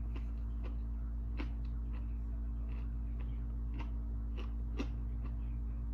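Someone chewing food close to the microphone, with scattered small irregular clicks from the mouth and eating, over a steady low electrical hum.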